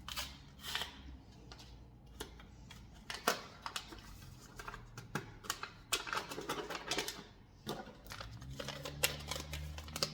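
Irregular clicks, taps and rustles of kitchen items and packets being handled. A steady low hum comes on near the end.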